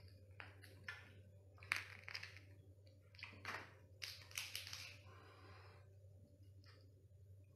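Small spicy-cooked river crab being pulled apart by hand: its shell cracks and snaps in short crackly bursts, a few clustered in the middle seconds, with wet tearing of the meat.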